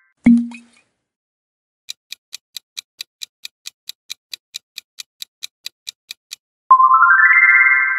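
Quiz countdown-timer sound effect: a clock ticking evenly, about five ticks a second, for roughly four and a half seconds. It is preceded by a short low thump, and a bright chime that fades slowly sounds near the end.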